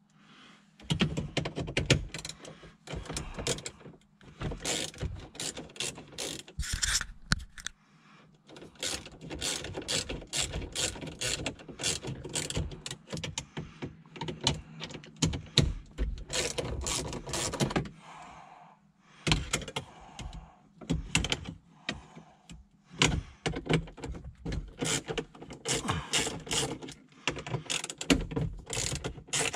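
An 8 mm hand nut driver ratcheting in runs of rapid clicks as fasteners in a dashboard radio mount are turned, with short pauses about 8 and 18 seconds in.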